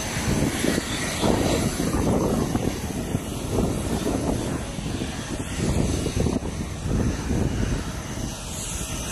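Steady jet aircraft noise on an airport apron, with a thin high whine running throughout. Under it is an uneven low rumble that swells and fades every second or so.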